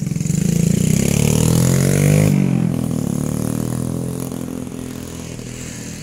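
A motor vehicle engine passing by. Its note climbs and grows louder, peaks a little over two seconds in, then drops in pitch and fades away.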